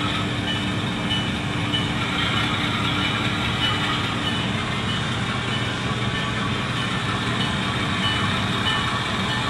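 Tsunami sound decoder's GE FDL-16 diesel prime-mover sound playing through an HO-scale C44-9W model locomotive's small speaker, running steadily as the model backs slowly toward its train, with a faint high tick repeating about twice a second.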